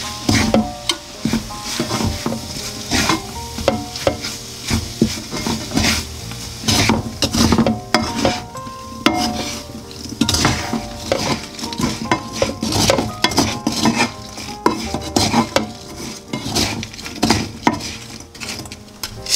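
Wooden spatula quickly stirring and scraping sugar-coated ginger slices around a nonstick frying pan, in rapid repeated strokes with light sizzling. The last moisture is being driven off so the sugar dries into a white crystalline coating on the slices.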